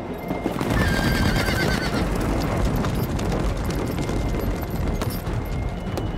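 Several horses galloping through snow, their hoofbeats crowding together, coming in just under a second in. A horse whinnies about a second in.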